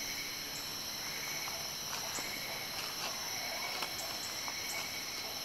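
Tropical forest ambience: a steady, high-pitched drone of insects at several pitches at once, with scattered light clicks and a few brief high chirps.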